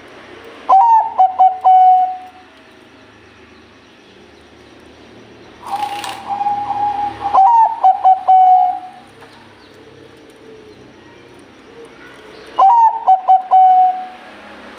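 Zebra dove (Bangkok-strain perkutut) cooing: three phrases, each a quick run of short staccato coos ending in a drawn-out note, the middle phrase longer than the other two.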